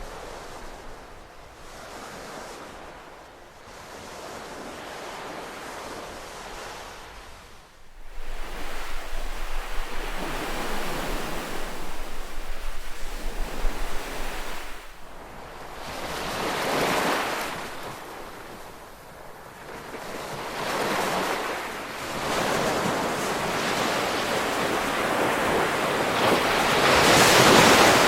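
Ocean surf: waves breaking and washing in, a rushing noise that swells and ebbs every few seconds, the loudest swell near the end. About eight seconds in the sound jumps suddenly louder and rougher.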